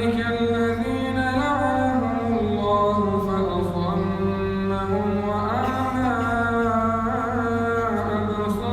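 Solo male voice reciting the Quran in melodic tajweed style, drawing out long held notes that rise and fall slowly in pitch, over a steady low hum.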